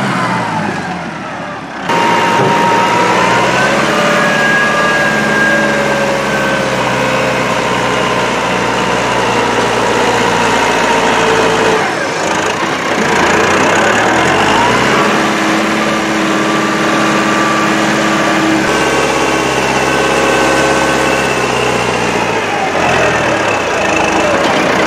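Massey Ferguson tractor's diesel engine running loud and steady from about two seconds in, while it works a front-end loader carrying a bucket of chopped corn silage. The engine note rises and falls several times with the throttle.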